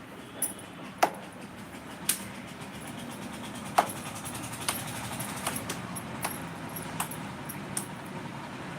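Utensils clinking against a plate: about nine sharp, short clinks at irregular intervals of roughly a second, over a steady low background hum.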